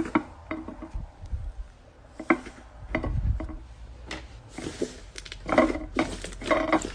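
Hands squishing and poking slime: irregular sticky clicks and wet pops, with a denser run of squelching near the end.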